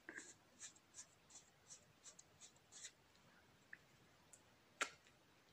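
Faint, quick scratchy strokes, about three a second for some three seconds: fingers rubbing a cloth waxing strip down onto cold wax on an eyebrow. A single sharp click comes near the end.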